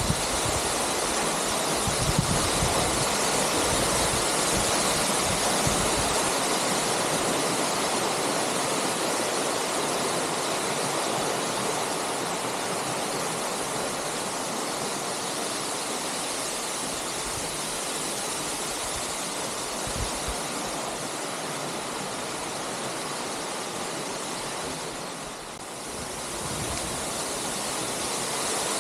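A waterfall rushing in a steady, even roar of falling water, briefly dipping in level about 25 seconds in.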